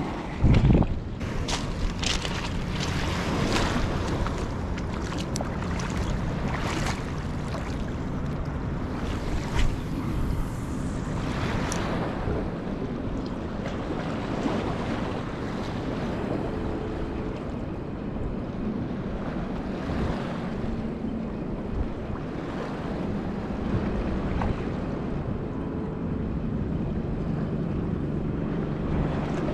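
Wind buffeting the microphone on a riverbank, over the rush of the river. A run of crunches and knocks comes in the first dozen seconds, and a faint low hum sits under the wind in the second half.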